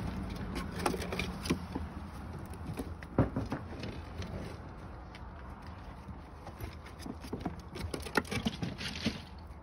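Puppies' paws and claws pattering and scuffling on a wooden deck, with irregular clicks and knocks; the loudest knocks come about three seconds in and about eight seconds in.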